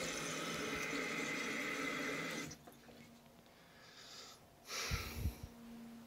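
Jacuzzi Lyndsay toilet's fill valve hissing as the tank refills, then shutting off abruptly about two and a half seconds in. A brief rustle with a few low bumps follows near the end.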